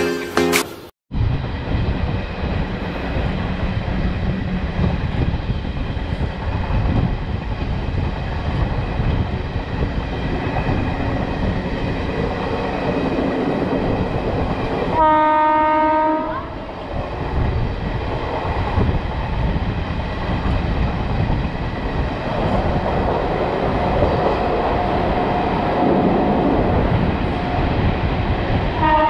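Moving train's running noise, a steady rumble and rush of wheels and air heard from the open coach doorway. About halfway through a train horn sounds for about a second, and another horn blast begins right at the end.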